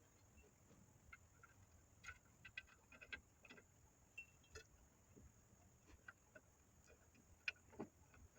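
Near silence with faint scattered clicks and light knocks, the loudest near the end: small metal tools and brake parts being handled while a new rear drum-brake wheel cylinder is fitted.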